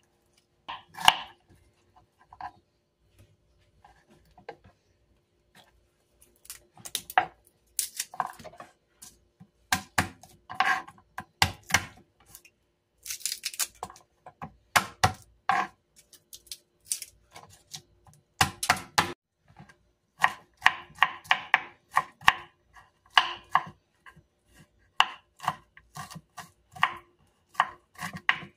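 Kitchen knife chopping on a wooden cutting board, cutting onion and garlic: scattered single knife strikes at first, then a quicker run of chopping strokes in the second half as the garlic is minced.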